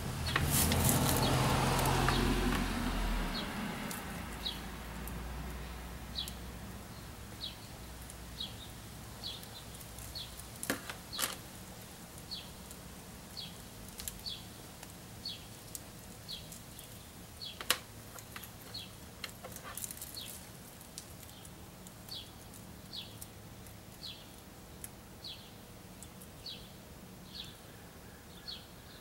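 A bird repeating a short, high, slightly falling chirp about once a second, against faint outdoor background. In the first few seconds a loud rushing noise drops in pitch and fades away, and a few sharp clicks sound around the middle.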